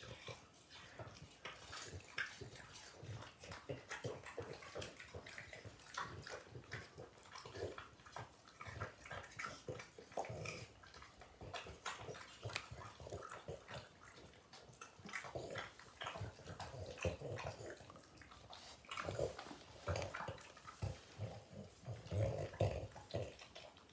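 Two French bulldogs chewing food taken from a hand and smacking and licking their lips, a faint run of small irregular clicks and smacks. Louder stretches of low dog grunting and breathing come in from about fifteen seconds in and again near the end.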